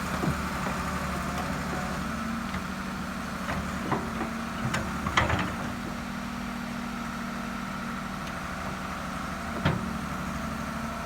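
Excavator's diesel engine running steadily, with a few short knocks and clanks, the loudest about five seconds in.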